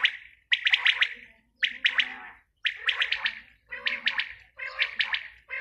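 Female quail calling: a quick run of rapid chattering notes, repeated about once a second, five times over.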